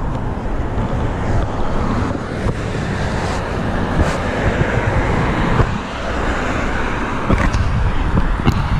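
Steady rush of wind on the microphone while cycling, with road traffic noise underneath.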